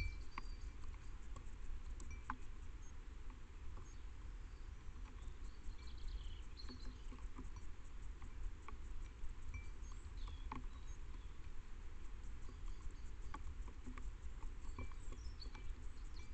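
Rain dripping and pattering: scattered single drops ticking irregularly over a low steady rumble.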